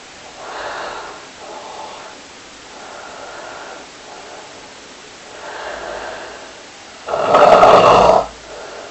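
A person snoring: several soft breathing snores about a second long, then one much louder snore lasting about a second, about seven seconds in.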